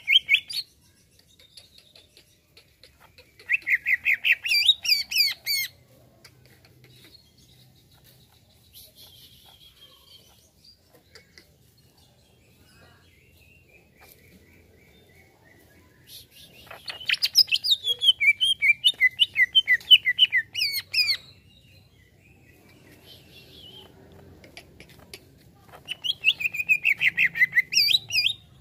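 Green leafbird (cucak ijo) singing in three bursts of rapid, high chirping notes, a few seconds long each, with faint scattered chirps between them.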